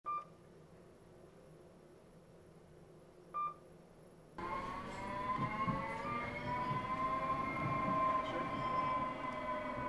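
Two short electronic beeps about three seconds apart, then, starting suddenly about four seconds in, a steady rumbling with a high multi-toned machine whine that slowly bends in pitch.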